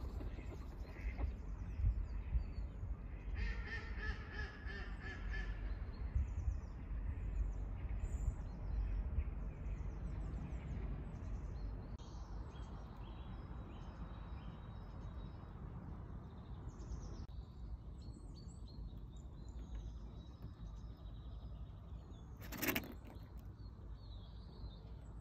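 Outdoor ambience: small birds chirping over a steady low rumble of wind on the microphone, with ducks quacking a few seconds in. A single sharp click near the end.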